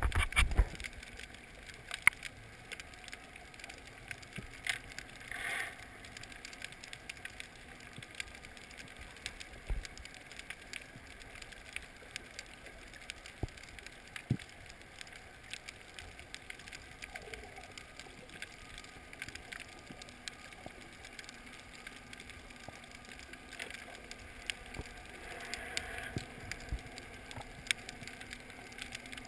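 Underwater ambience heard through a GoPro's waterproof housing: a faint steady hiss with scattered sharp clicks and crackles. There are brief louder rushes of noise about five seconds in and again near the end.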